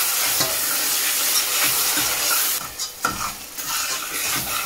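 Chopped onions sizzling as they fry in oil in a stainless steel saucepan, stirred with a metal spatula that scrapes against the pan. The sizzle eases a little about three seconds in, and the separate scrapes of the stirring stand out.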